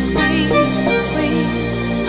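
Pop song as background music: a singer sings the word "queen" over the backing track.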